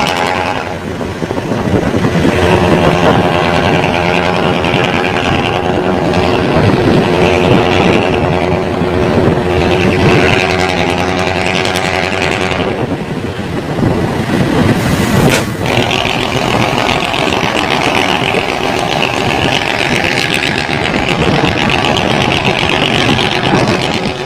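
Alfa Romeo FNM D-11000 truck's diesel engine running loud and steady under load on the road. There are brief dips in loudness about a second in and again around thirteen seconds.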